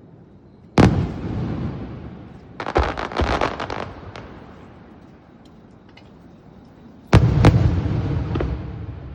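Aerial fireworks bursting overhead: a sharp bang about a second in that trails off in a rolling rumble, a quick run of pops around three seconds, and two more bangs close together near the end, each fading away in an echoing rumble.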